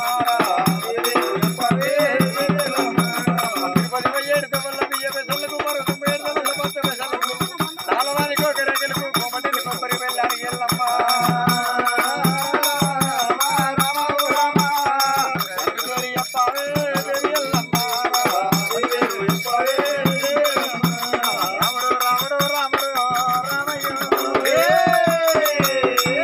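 A man's voice singing a devotional folk song in long gliding phrases, over a hand-beaten steel-shelled cylindrical drum keeping a steady beat, with a jingling rattle throughout.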